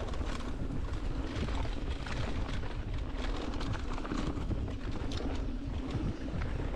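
Mountain bike riding down a dirt forest trail: a steady rumble from the tyres rolling over dirt and leaf litter, with frequent clicks and rattles from the bike and wind on the camera's microphone.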